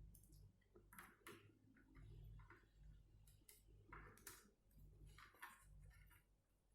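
Faint, irregular small clicks and taps of plastic parts being handled and pressed as cable connectors are fitted inside a laptop.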